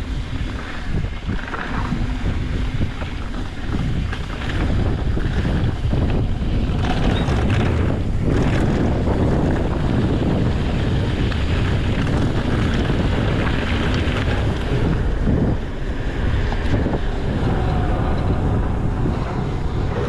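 Wind buffeting the microphone over a steady rumble from a mountain bike rolling fast down a trail, with scattered knocks and rattles from the tyres and frame over rough ground.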